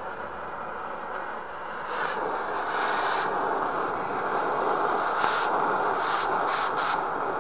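Oxy-fuel cutting torch flame hissing steadily against a steel part as it heats it, growing louder about two seconds in, with several short bursts of sharper hiss near the start and end.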